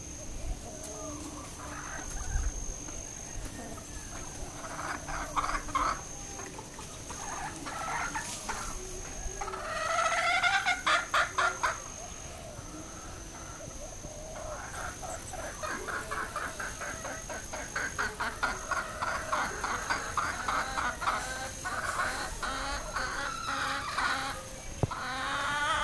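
Several hens clucking and calling in runs of quick, repeated notes: the chatter of chickens gathering to be fed in the evening. The loudest burst comes about ten seconds in, and a denser run of clucking fills the second half.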